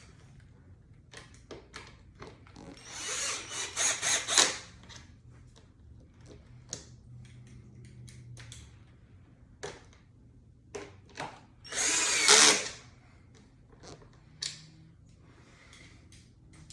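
Cordless drill/driver running in two short bursts, about three seconds in and again about twelve seconds in, driving in the fender's mounting screws. Scattered clicks and knocks of handling the tool and parts in between.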